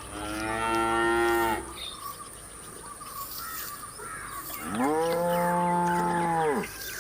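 Cow mooing twice: a first moo of about a second and a half at the start, then after a pause a deeper, longer moo that swoops up at its start and drops away at its end.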